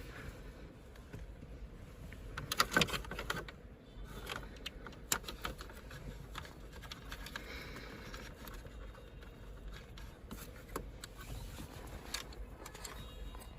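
Light clicks and clatter of plastic wiring plugs and cables being handled, with a brief louder clatter about two and a half seconds in and single ticks after.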